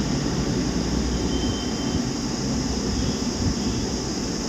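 Steady background noise: a low rumble with a constant high hiss and a faint brief whistle, like room machinery running.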